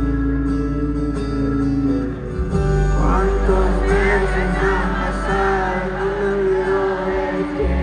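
Live band playing sustained chords with guitar and bass. From about three seconds in, a crowd of fans screams and cheers over the music until near the end.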